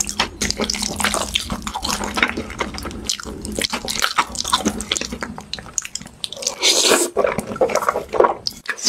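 Close-miked mukbang eating sounds of jjajangmyeon, Korean black-bean-sauce noodles: a dense run of sticky, wet clicks and smacks as the sauced noodles are stirred, lifted with chopsticks and chewed, then slurping near the end.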